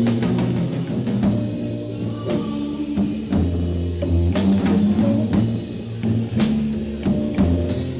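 Live improvised rock played by an electric guitar, bass guitar and drum kit trio, recorded from an audio tape: drum hits over held bass notes.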